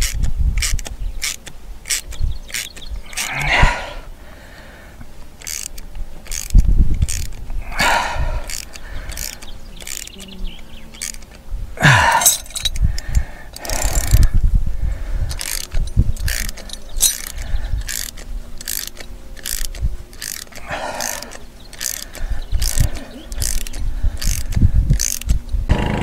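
Repeated ratchet-like clicking from a hand tool fixing a mounting bracket to a wall, in runs with short breaks, with a few short scraping rasps between them.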